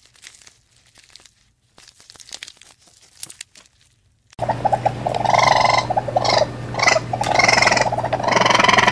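A giraffe stripping and chewing leaves, heard as soft scattered crunching and rustling. About four seconds in, loud animal calls start abruptly and run in long repeated stretches with short breaks.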